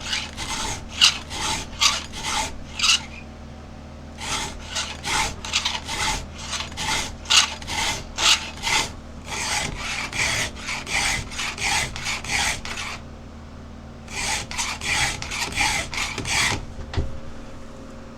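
Hand-filing a chainsaw chain with a Husqvarna 2-in-1 file guide: quick rasping file strokes, about three a second, in three runs with two short pauses. The guide's round and flat files sharpen an Oregon chain's cutter and lower its raker together, bringing a badly damaged tooth back into shape.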